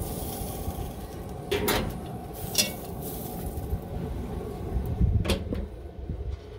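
Metal clatters from a cast-iron Dutch oven and its wire handle being lifted off a grill grate, then a barbecue grill lid swung shut with a low thump near the end.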